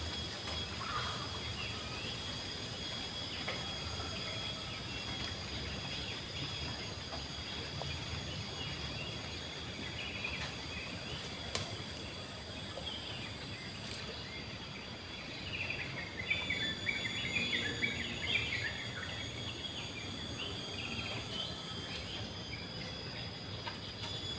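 Outdoor riverside ambience: steady high insect drones, with a bird twittering briefly past the middle, over a low rumble.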